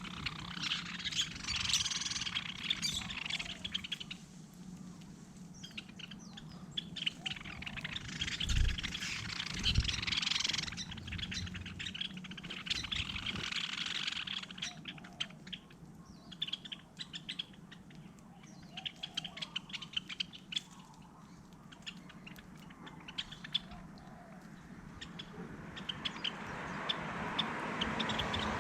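Birds chirping and twittering in quick bursts, with short lulls between them.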